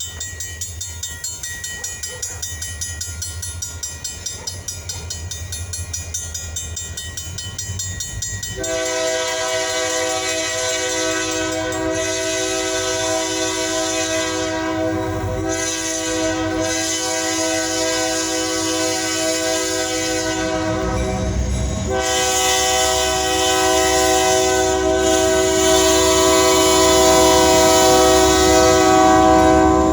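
Diesel freight locomotives approaching: a low rumble, then about nine seconds in the locomotive's multi-chime air horn starts blowing. It sounds in long blasts with a few brief breaks and grows louder as the train nears.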